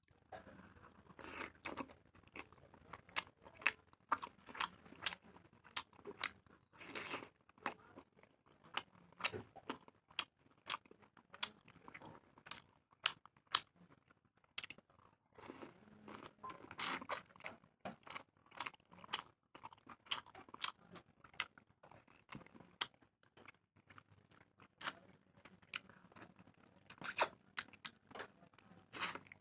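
Close-up sounds of a person eating a chicken leg: irregular wet chewing, biting and mouth smacks, many short clicks a few per second.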